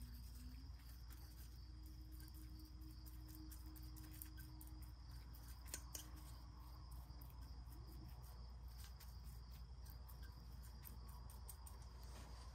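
Near silence: faint room tone with a steady low hum, a faint high-pitched tone and a few light ticks.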